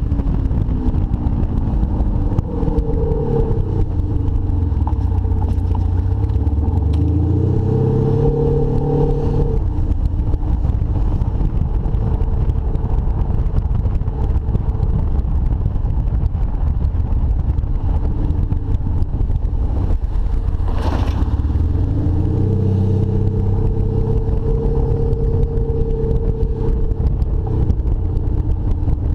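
Audi A6 allroad 3.0 BiTDI V6 diesel fitted with a Kufatec Sound Booster Pro, whose exhaust-area speaker plays a synthetic engine note heard close at the rear bumper while the car drives slowly. The pitch falls then rises with the revs twice, holding steady in between, and there is one short clack about two-thirds of the way through.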